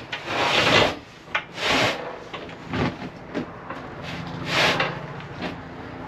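Tabletop panels scraping and sliding across the bench and table frames as they are shifted into place, in several short strokes.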